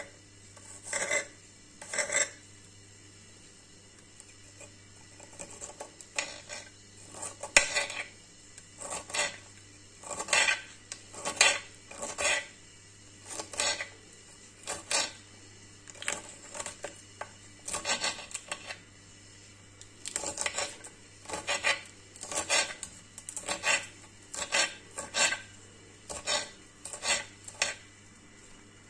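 Kitchen knife cutting crosswise through fresh broccoli leaf stalks: crisp single cuts, roughly one a second, with a pause of a few seconds after the first two.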